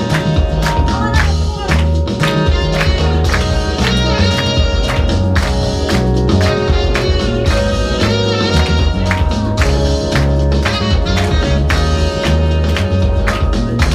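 Loud music with a steady drum beat and heavy bass.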